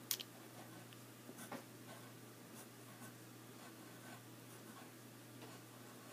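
Faint scratching of a wooden pencil writing a word by hand on paper, in short strokes, with a light tap as the pencil first touches down.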